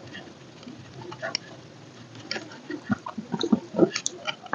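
A person eating close to the microphone: small wet mouth clicks and chewing sounds, sparse at first and busier in the second half.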